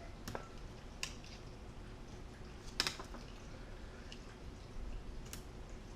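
Faint sharp clicks and ticks of tweezers and a tiny laptop cable connector being worked against its board socket, five or so scattered over a few seconds, over quiet room tone.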